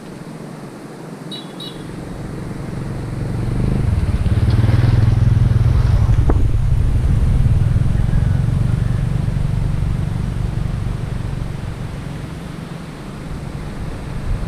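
A motor vehicle's engine drones, growing louder a few seconds in and easing off toward the end, as if passing by. There is a single sharp click midway.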